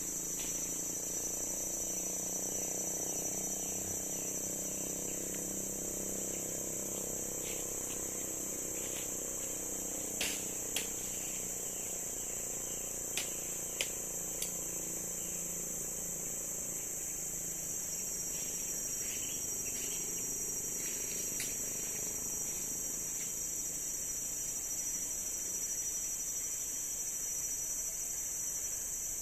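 Steady, high-pitched chorus of forest insects, with a few sharp clicks about ten to fifteen seconds in.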